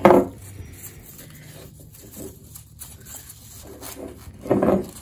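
Soft rustling and handling of a ribbon being wrapped and tied around a glass jar, with small faint clicks. A brief voice sound comes right at the start and another about four and a half seconds in.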